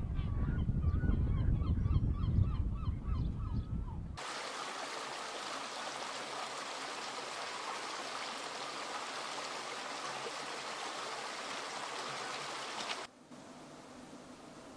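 A flock of waterbirds calling over a low rumble for the first four seconds. Then, after a sudden cut, the steady rushing of a stream, which drops abruptly to a faint hiss near the end.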